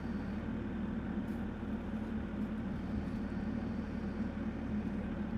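Excavator engine running steadily with a low, even drone.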